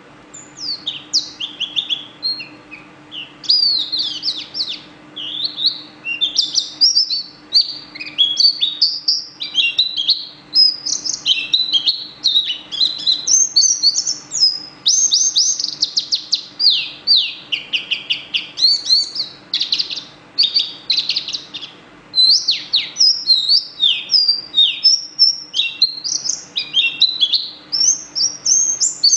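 A small yellow songbird singing without pause: a fast, varied run of high chirps, trills and sweeping whistles.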